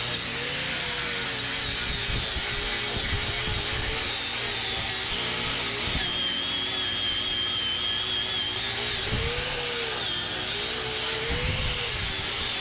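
A power tool fitted with a wire brush runs steadily against welded steel, its whine wavering as it loads up. It is stripping paint that the welding heat has blistered.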